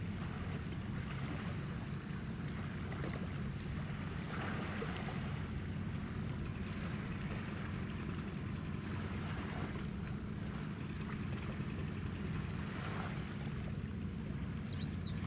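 Steady low drone of a passing naval tanker's engines, mixed with wind and water noise, with a few faint high chirps.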